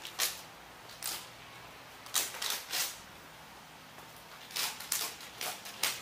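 Golden retriever sniffing in short, sharp bursts: a few spaced sniffs, then a quicker run of them over the last second and a half.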